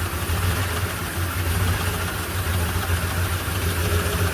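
Ford 6.2L V8 idling steadily with a low, even hum, running with cylinder 7 dead: a misfiring cylinder with no compression.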